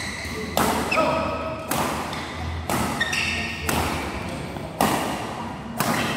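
Badminton rackets striking the shuttlecock in a fast doubles rally, about six sharp hits roughly a second apart, each ringing briefly in the hall.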